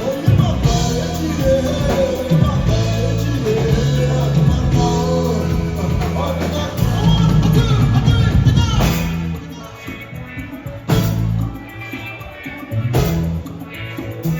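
Live band playing highlife-style music: electric bass, guitar and drum kit, with singing in the first part. About nine seconds in the music drops quieter, broken by a couple of sharp band hits.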